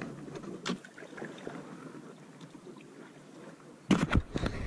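Light clicks and taps from gear being handled in a small solo canoe, then about four seconds in a run of louder knocks with low bumping against the boat.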